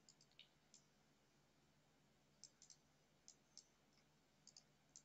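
Faint computer mouse clicks, about a dozen, scattered and some in quick pairs, over near-silent room tone.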